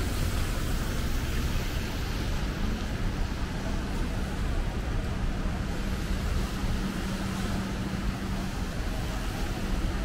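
Steady street traffic noise on wet roads: an even hiss over a low rumble, with a steady low hum that is strongest through the middle.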